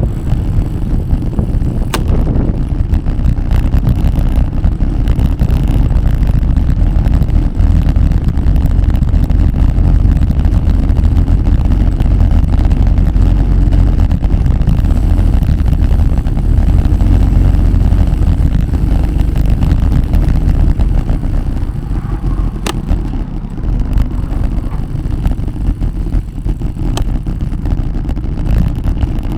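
Steady low rumble of wind buffeting the microphone and road noise from riding along on a bicycle, with a few sharp clicks, once early on and twice near the end.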